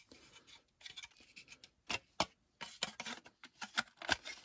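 Plastic model-kit parts, a car chassis and body shell, clicking and rubbing together as they are handled and fitted: a string of small irregular clicks, a few sharper ones among them.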